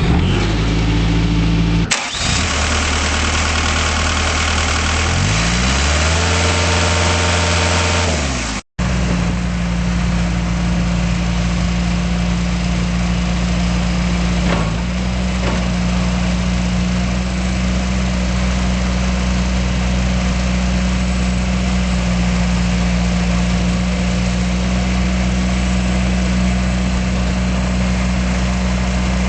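Bobcat S175 skid steer's four-cylinder Kubota diesel running. Its pitch climbs as it is revved and drops back a couple of seconds later; after an abrupt cut it runs steadily at an even speed.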